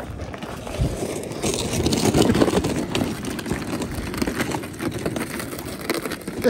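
Boots crunching over rough lake ice while a loaded gear sled scrapes and rattles across the ice, making a continuous, irregular gritty noise.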